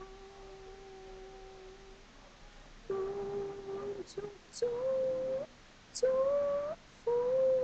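A woman humming a slow Cantonese song unaccompanied, in long held notes. One note fades away at the start; after a short pause she comes back in about three seconds later and steps up to higher held notes, with brief breaks between phrases.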